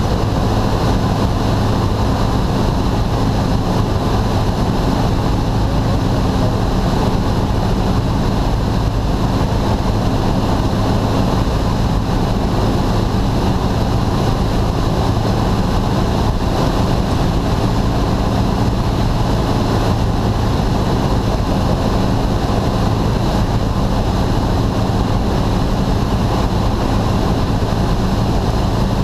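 Cessna single-engine plane in cruise, heard inside the cockpit: the piston engine and propeller drone at a constant pitch, over a steady rush of air.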